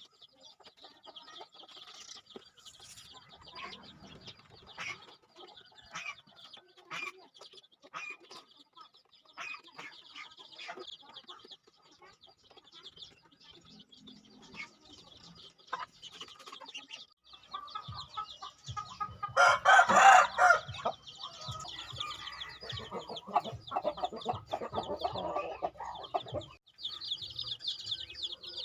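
Chickens clucking, with scattered sharp ticks in the first half and one loud rooster crow about twenty seconds in, followed by more clucking. A steady high chirring runs underneath.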